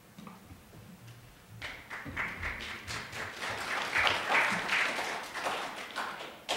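Audience applauding, starting about a second and a half in, building to a peak and thinning out near the end.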